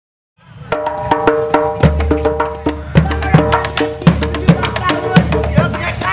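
A moment of silence, then background music fades in: a steady beat of percussion hits, about two to three a second, over a low bass and held tones.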